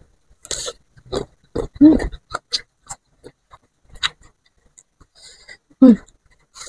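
Close-up chewing and crunching of raw fruit: a string of short, wet mouth clicks, with a brief hum about two seconds in and another near the end.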